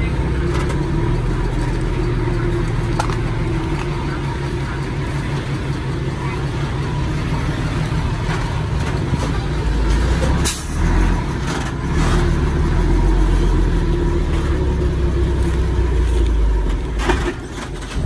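Komatsu D51PX bulldozer's diesel engine running with a steady drone. It grows louder for several seconds in the second half, and there is a single sharp knock about halfway through.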